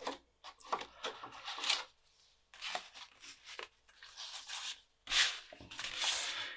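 Cumana 5.25-inch floppy drive chugging: irregular bursts of scraping, grinding drive noise with short pauses as it works through a disc. The disc surface is blemished, which the owner blames for read problems.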